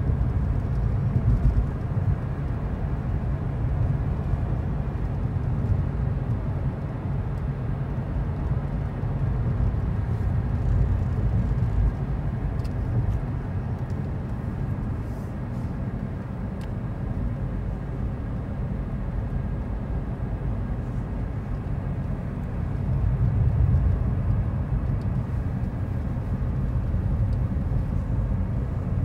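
Car driving along a road, heard from inside the cabin: a steady low rumble of road and engine noise that swells briefly about three-quarters of the way through.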